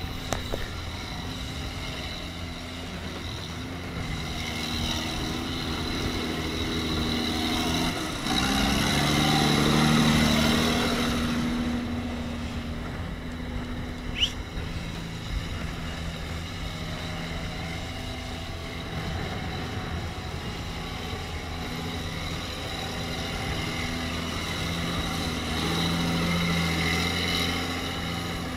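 John Deere tractor's diesel engine labouring as the tractor churns through deep mud. The revs rise and get louder about eight seconds in, ease back a few seconds later, and swell again near the end.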